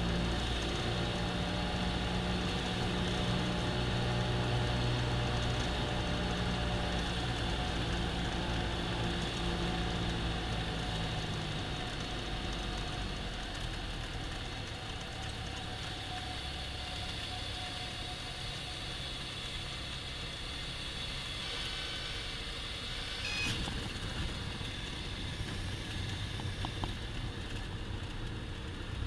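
Cessna 172M's four-cylinder Lycoming engine and propeller heard from inside the cabin on landing approach, running at reduced power and then pulled back to idle about 11 seconds in for the flare, idling through touchdown and the landing roll.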